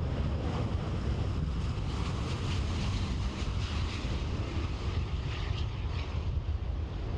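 Jet engine noise from an Airbus A350 XWB with Rolls-Royce Trent XWB engines as it lands, a steady heavy rumble mixed with wind noise on the microphone.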